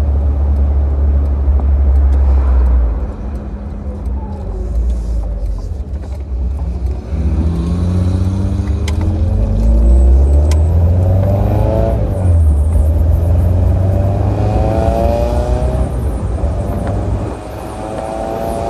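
1969 Triumph Spitfire Mk3's four-cylinder engine driving the car. It eases off about three seconds in, then climbs in pitch under acceleration again and again, dropping back at each gear change.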